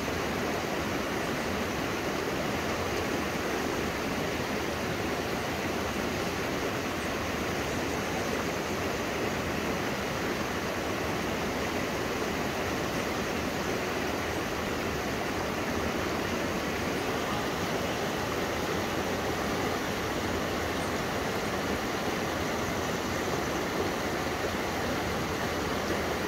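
Shallow rocky river running over and between boulders: a steady, unbroken rush of water.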